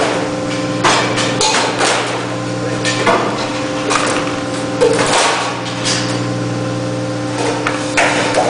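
Steady machine hum from a sheet-metal V-cutting machine, with several irregular sharp clanks and rattles as thin cut metal strips are lifted and handled on the machine's steel bed.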